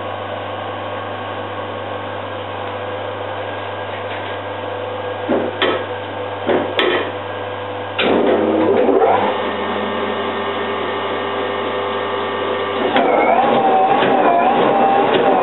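An ND long-stroke metal shaper runs with a steady mechanical hum, and a few clunks come as its controls are worked. About eight seconds in it gets louder, and near the end a rhythmic wavering whine sets in, repeating roughly every two thirds of a second as the machine cycles.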